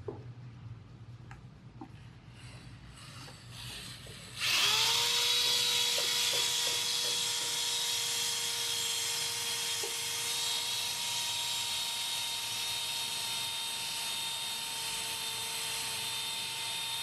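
Corded electric drill starting suddenly about four seconds in and running steadily with a constant whine, spinning a Kentucky flap sander whose abrasive strips hiss against the workpiece. Before it starts there are only a few light handling clicks.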